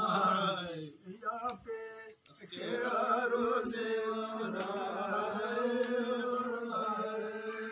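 A man chanting a Banjara devotional prayer (ardas) in long, slightly wavering held notes. It breaks off briefly about two seconds in, then carries on.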